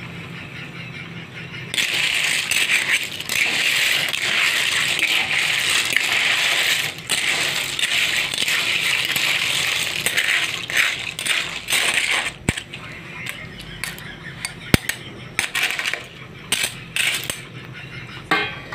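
Coconut milk poured into an aluminium wok of snails, a steady splashing hiss for several seconds. After that, snail shells in their shells click and knock sharply against the metal pan.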